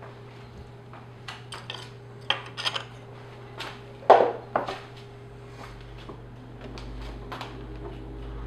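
Metal clinks and knocks of an espresso portafilter and tamper being handled and set down, a scatter of sharp taps with the loudest knock about four seconds in, over a steady low hum.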